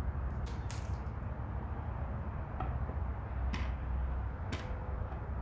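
A few light, sharp clicks and taps from a toy car and plywood track pieces being handled and set down, over a steady low background rumble.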